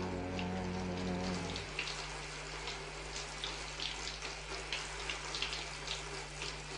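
Shower running: a steady hiss of spraying water with scattered drips and splashes. A held music chord fades out in the first couple of seconds.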